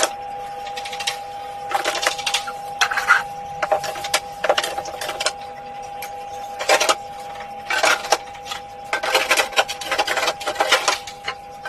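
Refrigerator's newly replaced freezer fan motor running with a steady whine as it blows air, a sign that the fan fault behind the EF error code is fixed. Irregular clicks and clatter sound over it.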